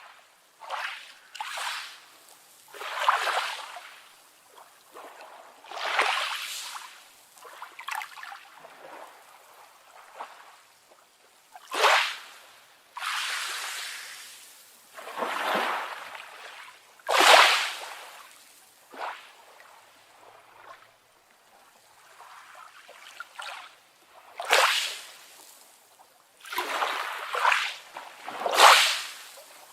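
Small sea waves splashing and lapping in separate surges every one to three seconds.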